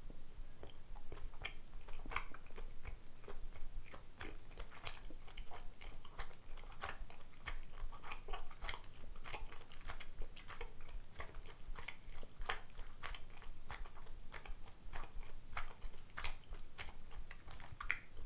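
A person chewing a soy-sauce glazed rice dumpling (dango) close to the microphone: a run of short chewing clicks and smacks, one to three a second at an uneven pace.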